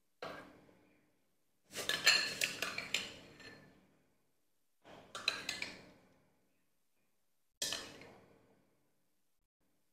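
Porcelain spoon clinking against small ceramic bowls as pig's-blood mixture is spooned into them, in four bouts: a brief one at the start, a longer run of clinks about two to four seconds in, another around five seconds in and a single clink near the end.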